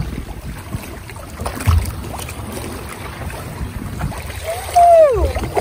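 Water and wind noise alongside a boat, with a low rumble, as a sailfish is held in the water beside the hull for release. About five seconds in, a person whoops once, the pitch falling.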